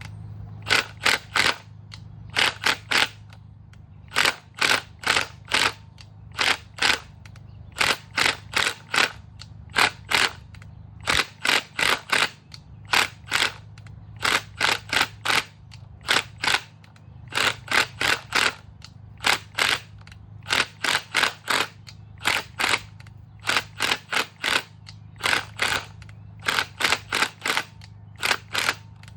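Impact wrench zipping in short bursts, often two or three at a time, again and again, over a steady low hum. It is working a seized exhaust header bolt out of an LS cylinder head, loosening and tightening it a little at a time so the bolt doesn't snap.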